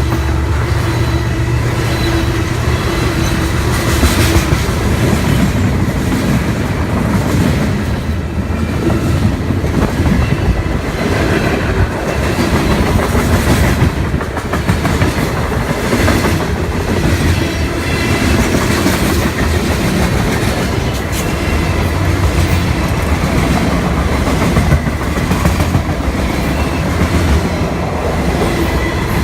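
A train rolling past at close range: a steady, loud rumble of the cars with wheels clicking over the rail joints.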